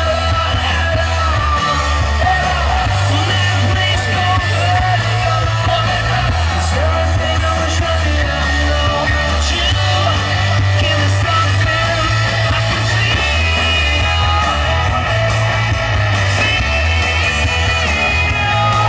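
Loud music with singing over a bass line that steps back and forth between two low notes.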